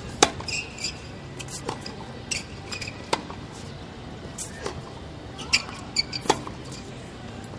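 Tennis play: sharp racket strikes and ball bounces, the loudest about every second and a half, with short high squeaks of tennis shoes on the court.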